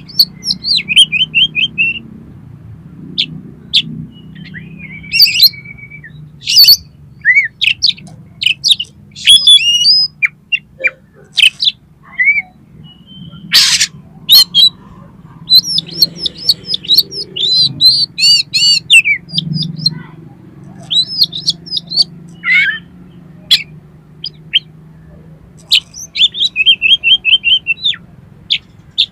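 Oriental magpie-robin (kacer) singing: a varied run of sharp chirps, whistled notes and fast rattling trills, with a steady low hum underneath and one sharp crack about halfway through.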